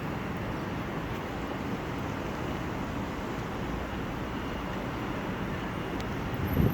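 Steady low rumbling outdoor background noise, with a brief louder thump near the end.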